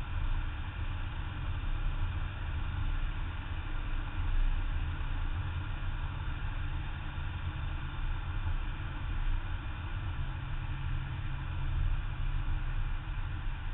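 Steady low rumble of a BMW E34 M5 driving at an even speed, picked up by a camera mounted on its front bumper: wind and road noise with the car's straight-six engine running underneath.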